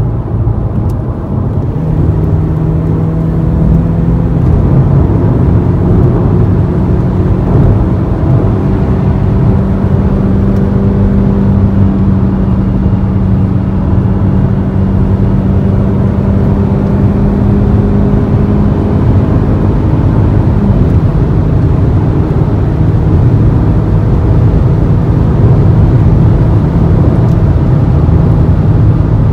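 Mercedes-Benz C250 with a catless downpipe and full turbo-back exhaust, heard from inside the cabin accelerating hard at highway speed. A steady exhaust drone climbs slowly in pitch, drops once about 21 seconds in as it shifts up a gear, then holds, over road noise.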